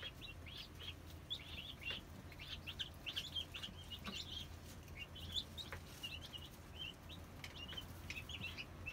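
A brood of baby chicks peeping continually, many short high peeps overlapping with hardly a pause, over a steady low hum.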